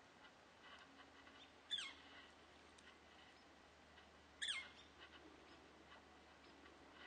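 A bird calls twice, about three seconds apart: each call a short, high note that slides quickly down in pitch, loud above a faint, quiet background.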